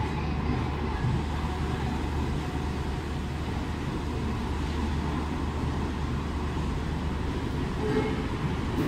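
Indian Railways passenger coaches rolling past at speed: a steady, deep rumble of the wheels and bogies on the rails.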